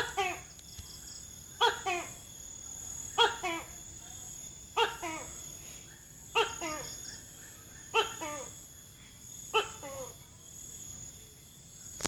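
Tokay gecko calling over and over, a pitched two-part "to-kay" call about every 1.6 seconds, seven calls in all. Insects keep up a steady high drone underneath.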